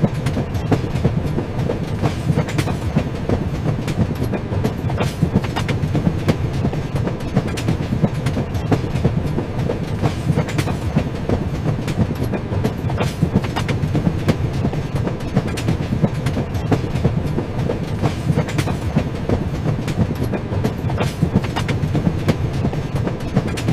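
Train running along the track: a steady low rumble with repeated clicks of the wheels passing over rail joints.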